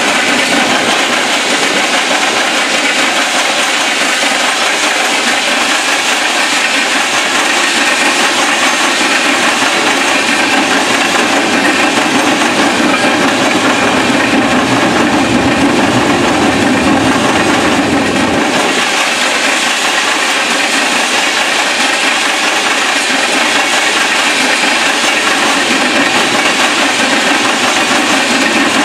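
Freight train of covered hopper cars rolling past, a steady rumble and rush of steel wheels on the rails. A deeper low rumble builds through the middle and cuts off suddenly a little past halfway.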